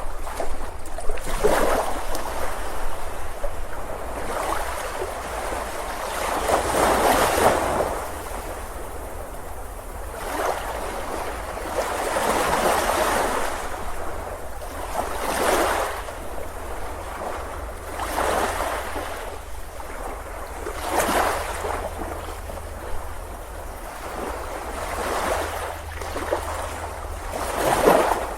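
Ocean surf breaking on a beach in repeated surges, each wave swelling and washing out over a few seconds, with a steady low rumble underneath.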